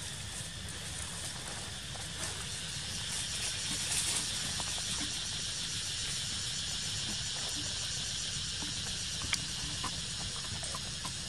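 A steady high hiss with a low rumble, and a few faint clicks and rustles, the sharpest about nine seconds in, as a macaque bites and chews a mango among dry leaves.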